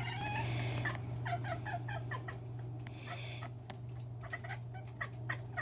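Domestic cat at a window chirping at a pigeon: quick, soft, pitched chirps in short runs, about a second in and again near the end, sounding pigeon-like.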